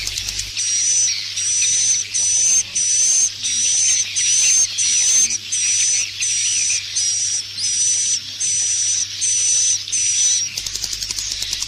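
Swiftlet roosting call ('inap' call) used to lure swiftlets: a buzzy chirp repeated evenly about one and a half times a second, over a dense background of many swiftlets chattering. The repeated chirps stop near the end, leaving only the chatter.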